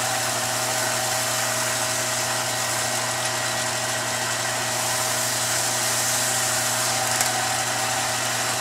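Billiard cue lathe running steadily: an even electric-motor hum with a hiss over it as the cue shaft spins.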